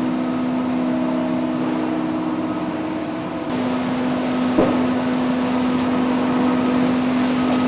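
Industrial hemp processing machinery running with a steady hum; its tone steps down a little about three and a half seconds in, and a single sharp knock sounds shortly after.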